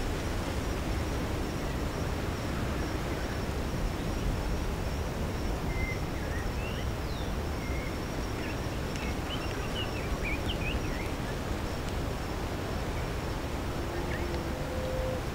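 Outdoor valley ambience: a steady rumble of wind with small birds chirping, a run of quick chirps in the middle, over a faint steady high whine.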